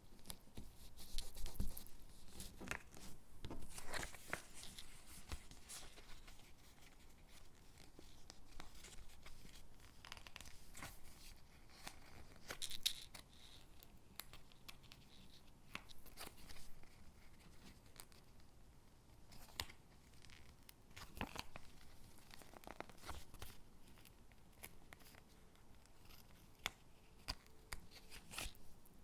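Stickers being peeled off their backing sheet and pressed onto paper gingerbread cutouts: irregular short peeling and rustling sounds, a few seconds apart, with soft paper handling between them.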